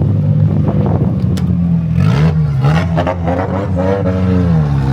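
Drift car engine running at high revs, its pitch dipping and climbing back a few times as the throttle is worked.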